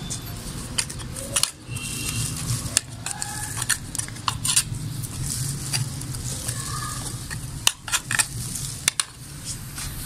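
Metal hand trowel digging and scraping through wet potting soil in a pot, with irregular scrapes and sharp clicks as the blade knocks the pot's side. The soil is being loosened to aerate it after waterlogging.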